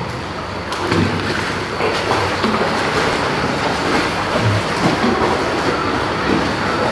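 Pool water splashing and sloshing steadily as a dog paddles and a child swims beside it, a continuous rushing wash of water with a few small knocks.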